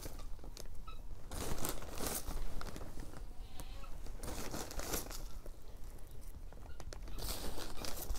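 Handfuls of vermiculite sprinkled and brushed over a plastic seed-starting tray to cover the seeds: grainy rustling that comes in three spells about three seconds apart, with light ticks of granules between.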